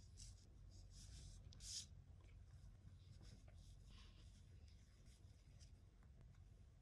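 Near silence with faint rustling of yarn and a crochet hook being handled and worked through stitches, one slightly louder rustle a couple of seconds in, over a low steady hum.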